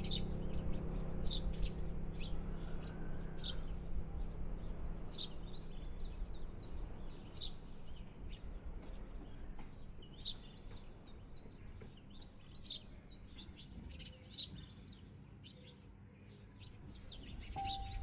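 Baby birds in the nest giving a quick, continuous run of short, high-pitched begging cheeps while an adult feeds them, over a low hum that fades away in the first half.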